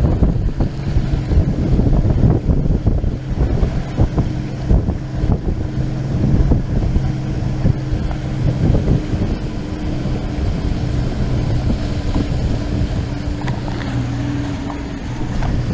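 Motorboat engine running at a steady pitch under way in rough water, under heavy wind rush on the microphone. Irregular thuds and splashes of the hull meeting waves come through, most often in the first half.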